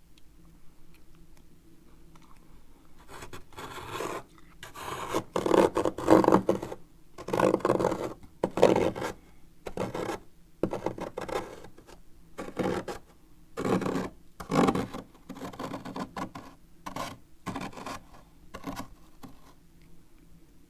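A spoon scraping packed frost off a freezer wall in a run of separate scrapes, about one or two a second. The scraping starts about three seconds in, is loudest in the first half and grows softer toward the end.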